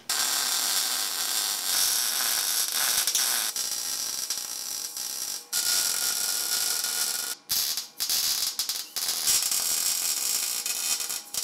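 Electric arc welding of chromoly steel bike tubing onto a steel frame rail: a loud, steady hiss of the arc that stops and restarts several times as separate welds are laid down.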